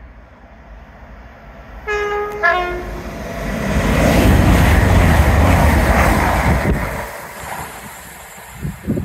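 A train sounds a short two-tone horn about two seconds in, a higher note then a lower one. It then passes at speed: a loud rumble that swells to a peak and fades away.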